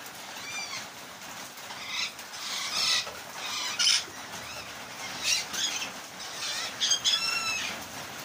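Parrots calling in several short squawks and screeches over a steady hiss of rain, the loudest calls a little before the middle and about a second before the end.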